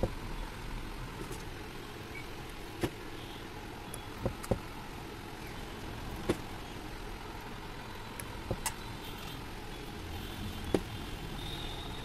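Small metal valve-train parts clicking as they are set into the bores of an aluminium cylinder head: about seven short, sharp clicks at irregular intervals, two of them in quick pairs. A steady background noise runs underneath.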